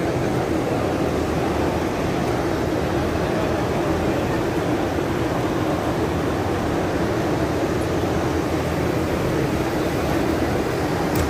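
Steady background hubbub of a crowded courtyard, an even wash of noise with no single sound standing out.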